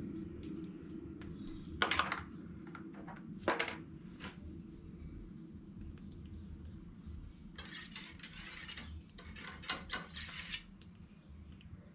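Light metallic clicks and clinks, then two stretches of scraping and rattling, from a muzzleloading rifle being loaded by hand at the shooting bench, over a low steady hum.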